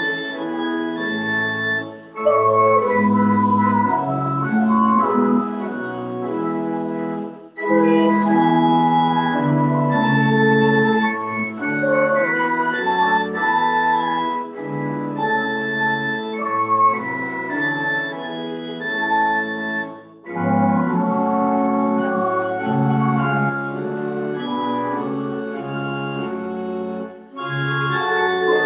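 Pipe organ playing sustained chords in phrases, with a brief pause between phrases about every five to seven seconds.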